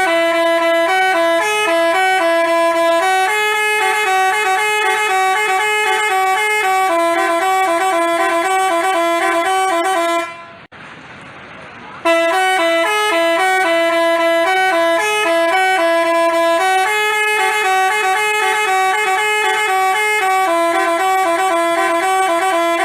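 Multi-tone 'telolet' bus horn of the Basuri type playing a tune of short horn notes. It stops about ten seconds in, and after a brief gap of hiss the same tune starts over.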